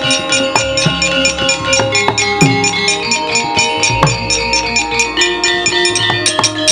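Javanese gamelan playing: ringing bronze metallophones over an even rhythm of sharp metal strikes, about five a second, with deep drum strokes that drop in pitch.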